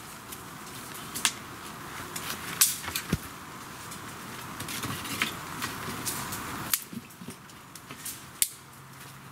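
Wooden poles and sticks knocking and clacking against each other in a series of sharp, irregular knocks as they are handled and fitted into a stick wall, over a steady hiss that drops away about two-thirds of the way through.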